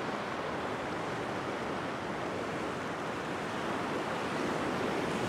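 Ocean surf washing and breaking over a rock ledge: a steady rushing of water that swells slightly near the end.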